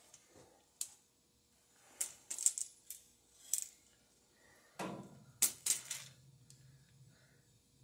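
Metal clinks and rattles of washing-machine suspension rods being handled: about eight sharp metallic taps in quick clusters, the rods and their springs knocking together.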